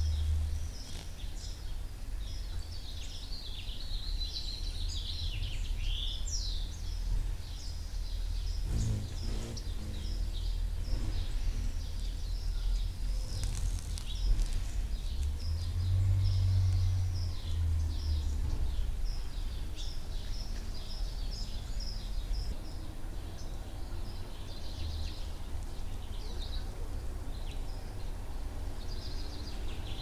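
Outdoor ambience of birds chirping in quick, short high notes, over a low steady rumble that swells briefly about halfway through.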